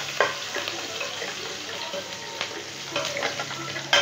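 Chopped garlic, ginger, green chillies and curry leaves sizzling in hot mustard oil in a steel kadhai while being sautéed for a tadka, with a perforated steel spoon stirring and scraping against the pan. The scrapes come as scattered clicks, the sharpest one near the end.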